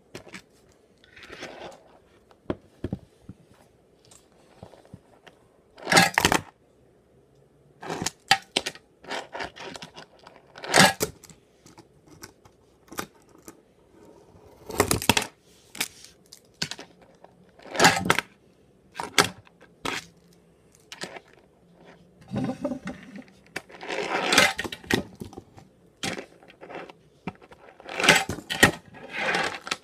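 Tech Deck fingerboard tricks on wood: grinds and a boardslide along the edge of a small wooden block. The board clacks down on the wood and scrapes along the ledge, attempt after attempt, as a series of sharp clacks, each followed by a short scrape.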